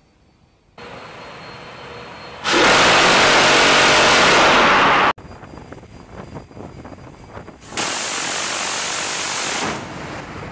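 Phalanx CIWS Block 1B gatling gun firing two long bursts. The first, louder, lasts about two and a half seconds and stops abruptly; the second comes about three seconds later.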